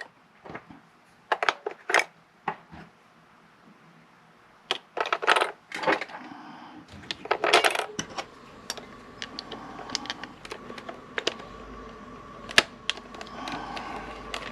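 Metal clicks and clinks of batteries and parts being handled and fitted into a Sony WA-55 cassette recorder, with a louder rattle about seven seconds in. About eight seconds in, a steady faint hum with a thin tone starts as the recorder is powered up, and sharp button clicks continue over it.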